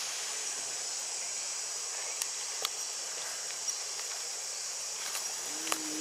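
Steady high-pitched drone of insects in the forest, with a few faint clicks, the sharpest near the end.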